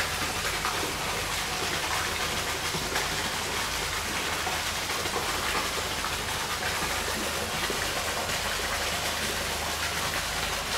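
Steady rushing and splashing of water from a fish pond's water feature.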